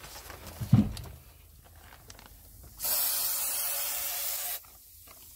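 Spray can of air-conditioner cleaner spraying onto the opened indoor unit: one steady hiss of just under two seconds, starting about three seconds in and cutting off sharply. A short knock comes about a second in.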